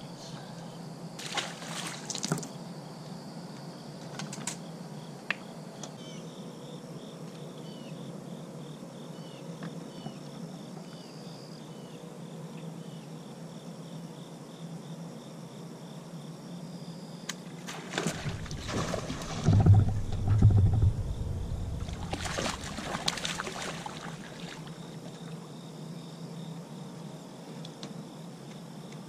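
Crickets chirping steadily, with a short splash about two seconds in and a louder stretch of splashing and deep thumps about two-thirds through as a bass is fought and landed at the boat.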